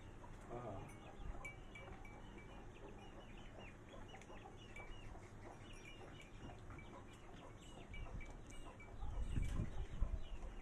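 Hens clucking softly, many short calls scattered throughout, with a louder low rumble about nine seconds in.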